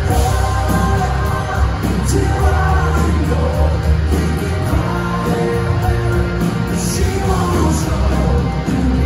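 Live blues-rock band playing loud, with electric guitars, bass, drums and a sung lead vocal, heard from the audience in a large hall.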